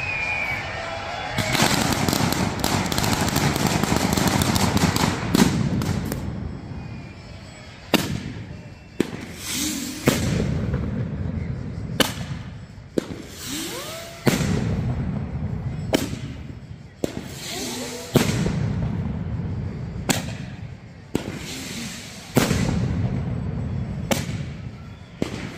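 Mascletà pyrotechnics: a dense string of firecrackers crackles rapidly for several seconds, then gives way to loud single bangs about every one to two seconds as rockets go up and burst overhead.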